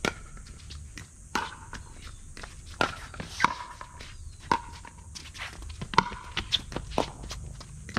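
Pickleball rally: paddles striking the hollow plastic ball, a run of sharp pops with a short ring, about one a second, the loudest about three and a half and six seconds in. Footsteps on the hard court between the hits.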